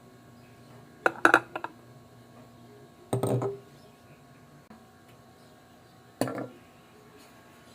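Three short bursts of clicking and knocking, like objects being handled, over a faint steady hum. The first, about a second in, is a quick run of several clicks; the others come about three and six seconds in.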